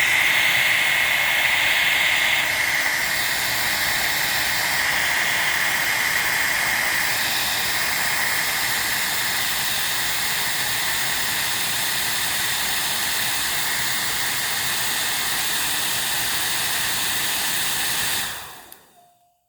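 Hairdryer running: a steady rush of blown air with a steady motor whine over it, switched off near the end and winding down.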